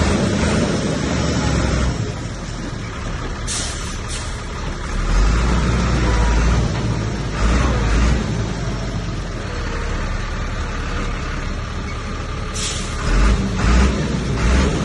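Heavy diesel earthmoving machinery running under load, the engine rumble swelling louder several times. Two short hisses of air, like a truck's air brakes, come about three seconds in and again near the end.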